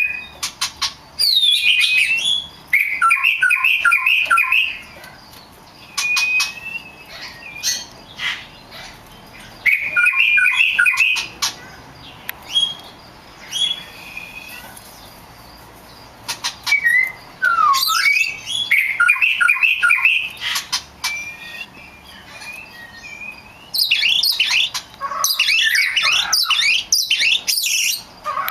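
Small songbirds chirping and singing: the same short warbled phrase comes back about three times several seconds apart, with scattered single chirps between. Several birds chirp over one another near the end.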